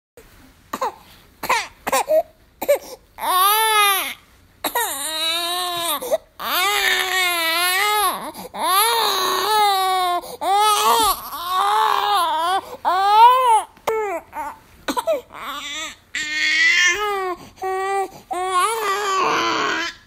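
Baby crying: a few short fussing cries, then a run of long, wavering wails, each about a second, with quick breaths between them.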